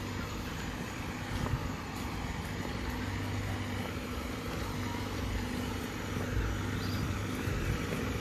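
Steady low mechanical hum over outdoor background noise.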